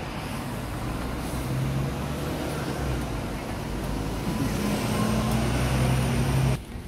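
Road traffic noise with a vehicle engine humming steadily through it, getting louder toward the end, then cut off abruptly near the end.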